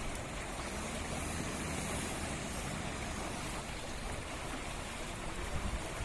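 An off-road 4x4's engine running at a distance, steady and even, under a constant rush of outdoor noise.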